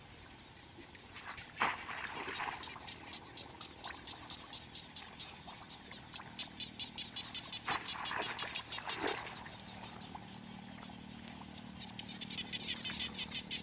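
An animal calling in rapid pulsed trains, with about ten high pulses a second, twice: once midway and again near the end. A few short sharp knocks or splashes fall in between.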